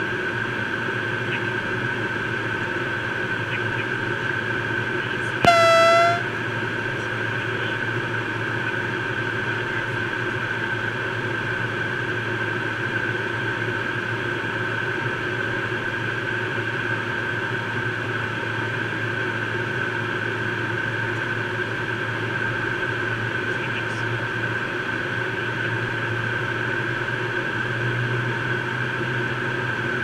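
Steady cockpit noise of a Learjet 35A's cabin in flight on approach, airflow and its twin turbofans with a steady high whine. About five seconds in, one loud electronic alert tone sounds for under a second.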